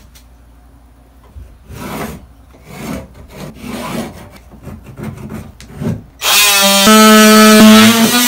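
A few soft scraping strokes against the wall, then about six seconds in an oscillating multi-tool starts with a loud, steady buzzing whine as it cuts into the drywall.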